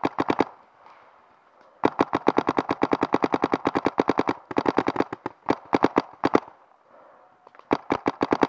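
Electronic paintball marker, a Dye M2, firing rapid strings of shots at about ten a second: a short burst at the start, two long strings in the middle, and another beginning near the end.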